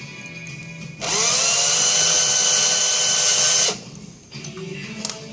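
Small electric drill spinning up, running steadily for close to three seconds, then stopping, as it drills out the rivet post of a Hot Wheels die-cast car. Its whine rises in pitch as it starts.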